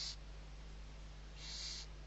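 Barn owl owlets hissing to beg for food: the tail of one hiss right at the start, then a second short hiss about a second and a half in, over a low steady hum.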